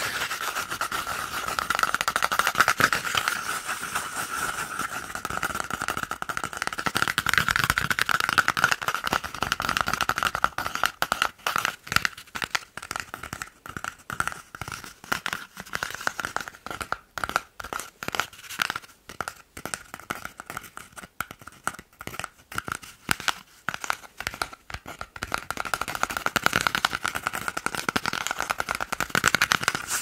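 Fingertips fast tapping and scratching an empty cardboard paper-roll tube, close to the microphone. A dense run of scratching for about the first ten seconds gives way to quick separate taps, which thicken again near the end.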